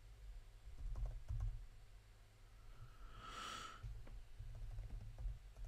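Quiet clicking of computer keyboard keys as a name is typed, in scattered runs of keystrokes. A short hiss sounds once a little over three seconds in.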